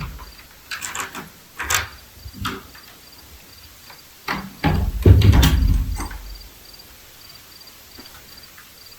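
A series of sharp knocks and bumps, the loudest and longest about five seconds in. Under them a cricket chirps steadily and faintly.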